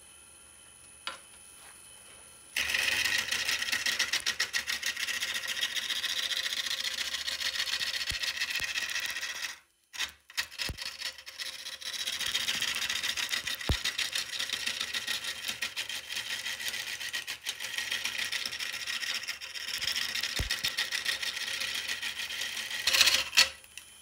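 Turning tool cutting wood spinning on a wood lathe: a fast, rattling hiss that stops briefly just before the halfway point and then runs on.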